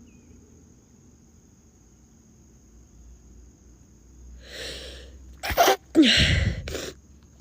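A girl sneezing. A breathy intake about four and a half seconds in leads up to the sneeze: a short sharp burst, then a louder, longer release a moment later.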